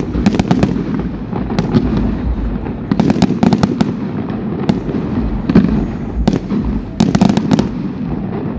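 Aerial fireworks bursting: many sharp bangs and crackles in irregular clusters, over a steady low rumble.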